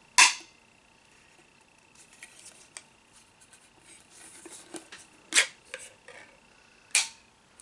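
Ring-pull lid of a small metal tin being opened by hand. There is a sharp crack just after the start as the tab is lifted, light clicks and scraping over the next few seconds, then two more sharp cracks as the metal lid tears away around the rim.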